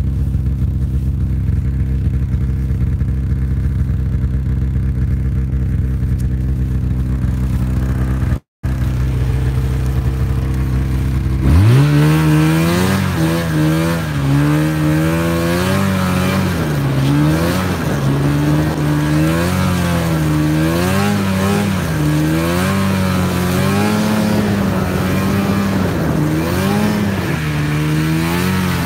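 Snowmobile engine idling steadily, then about eleven seconds in the throttle opens and the engine revs up, its pitch rising and falling as the sled rides off through the snow. The sound cuts out for a split second about eight seconds in.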